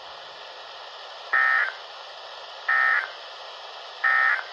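Three short EAS end-of-message data bursts from a NOAA Weather Radio broadcast, each a buzzy digital tone lasting about a third of a second, about a second and a half apart, over the receiver's steady static hiss. The bursts mark the end of the severe thunderstorm warning message.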